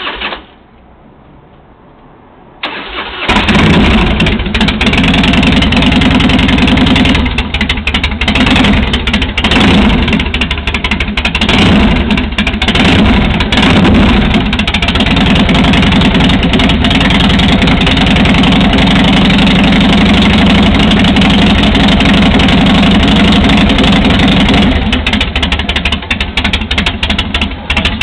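Harley-Davidson V-twin motorcycle engine starting after a short quiet stretch about two and a half seconds in, then running loud. It rises and falls a few times in the first half, holds steady, and drops to a lower, uneven idle near the end.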